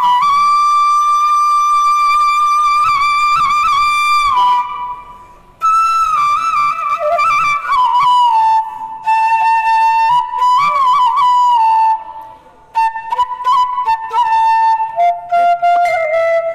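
Solo bansuri (bamboo transverse flute) playing a slow tune: long held notes with pitch bends and quick ornaments, two short pauses between phrases, and a run of short, detached notes near the end.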